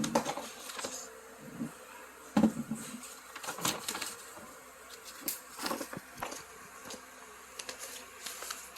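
Hands handling small plastic items, with scattered short clicks and knocks over a faint steady hum.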